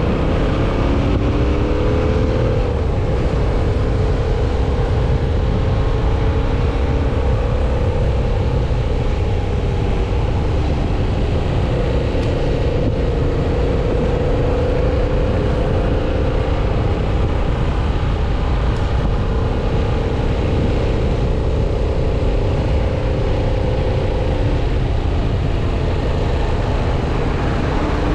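Yamaha MT-07 parallel-twin motorcycle engine running while riding, its pitch climbing in the first few seconds and then holding at a fairly steady cruise. Wind rumbles heavily on the microphone.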